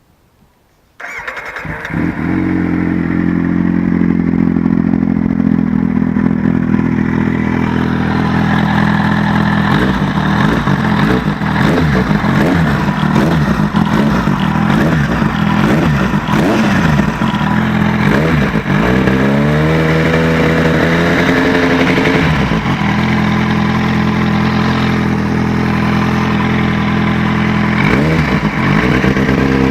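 Kawasaki Z750 inline-four motorcycle engine started about a second in and idling, revved up and held higher once midway and rising again near the end. Under it a faint tick like valve tapping, which the owner puts down to an exhaust leak at the header pipes (a cracked header or leaking gasket), not the valves.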